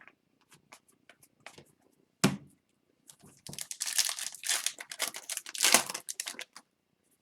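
Foil wrapper of a hockey card pack crinkling and tearing for about three seconds, after a single knock on the table about two seconds in and a few light ticks of cards being handled.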